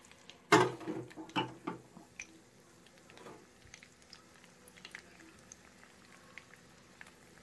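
Masala-coated prawn frying in hot oil in a pan: a few loud spitting bursts in the first two seconds, settling into quiet steady crackling with scattered small pops.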